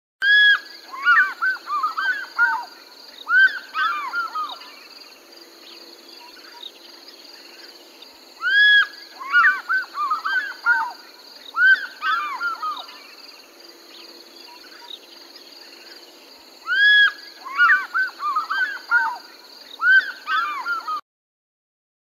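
African fish eagle calling: three bouts of calls, each a quick series of arched notes lasting about four seconds, with quieter gaps between them over a faint steady background. The sound cuts off about a second before the end.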